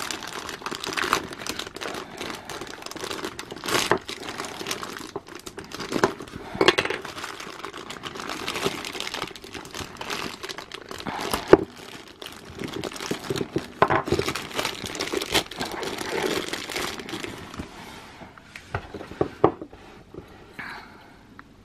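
Thin clear plastic packaging bags crinkling and crackling in irregular bursts as they are pulled open by hand. The crinkling thins out near the end.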